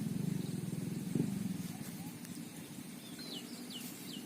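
A small engine running steadily with a low pulsing hum, fading away after about two seconds. Near the end a bird gives a few quick falling chirps.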